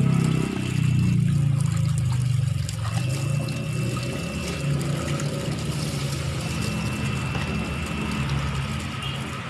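Water pouring steadily from a tap into a full plastic basin, splashing on the water's surface.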